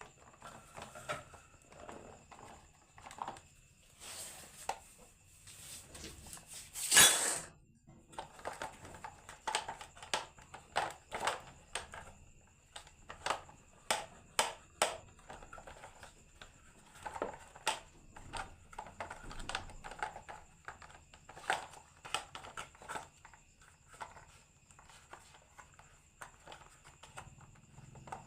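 Marbles clacking and rolling down a wooden HABA marble run: irregular hard clicks and knocks, with one louder clatter about seven seconds in.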